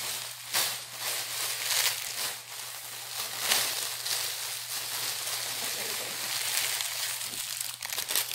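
A clear plastic packaging bag being handled and opened by hand: steady crinkling with many sharp crackles.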